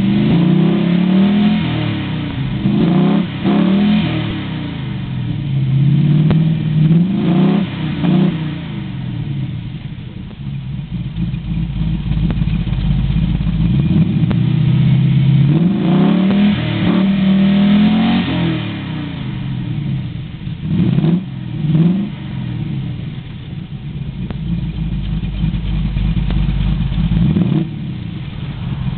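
Rover V8 engine in a Vauxhall Chevette, heard through a new exhaust, revved up again and again: its pitch climbs and drops in repeated surges, with steadier, lower running in between.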